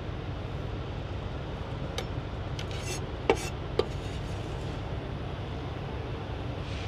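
A few scattered clinks and knocks of kitchen utensils against dishes while guacamole is being made, the loudest about three seconds in, over a steady low hum.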